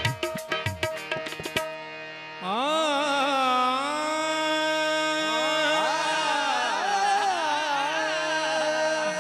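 Qawwali music: tabla strokes over harmonium for the first second and a half, then, after a brief held harmonium chord, a singer's long wordless held vocal line, wavering and gliding in pitch, over the harmonium drone from about two and a half seconds in.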